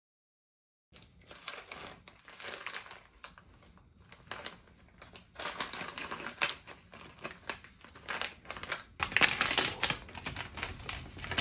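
Packaging crinkling and rustling in uneven handfuls as shopping purchases are handled and unwrapped, starting about a second in and loudest near the end.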